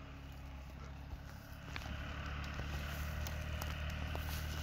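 An engine running low and steady, with footsteps crunching over dry twigs and grass as scattered sharp clicks.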